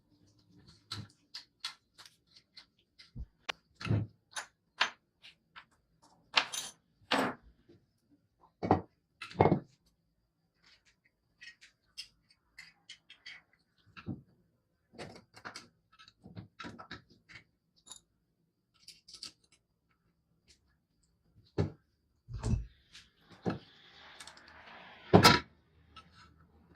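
Irregular knocks, clicks and clinks of hard parts and tools being handled and fitted, with a short hiss near the end.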